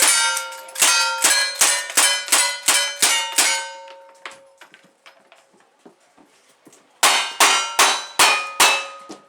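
Rapid gunshots, each followed by the ringing clang of a steel target being hit, about two or three a second. About ten come in the first three and a half seconds, then a pause of about three seconds, then a string of five more.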